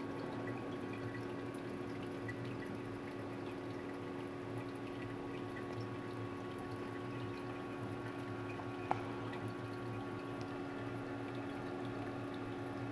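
Reef aquarium water trickling and splashing steadily, over a constant hum from the tank's pump. A single sharp click sounds about nine seconds in.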